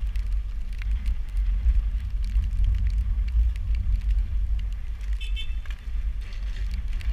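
Wind buffeting the microphone, a steady low rumble, with light crackling ticks from rain. A brief high chirp comes about five seconds in.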